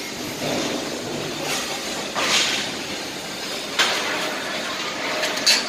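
Electric hoist of a 10-ton double girder gantry crane running as it lowers the hook block: a steady mechanical noise with several sharp clicks and knocks.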